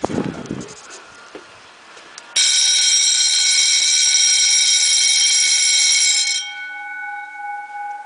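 Wheelock electric fire alarm bells starting suddenly about two seconds in and ringing loudly for about four seconds, then stopping, with the gongs left humming on as the ring fades.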